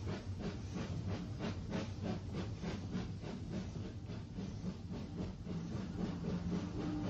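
Steam locomotive working, its exhaust chuffing in a steady, even rhythm of about three to four beats a second over a low rumble and hiss.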